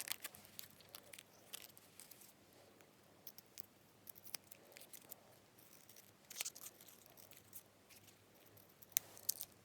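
Faint, scattered small clicks and rustles of hands handling a sheet of nail decals and small tools, the sharpest clicks about six and a half and nine seconds in.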